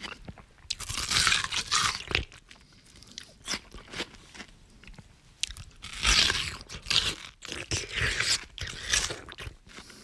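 A person biting into and chewing watermelon, in two loud spells of bites and chewing, one about a second in and one from about six to nine seconds in, with quieter mouth clicks between.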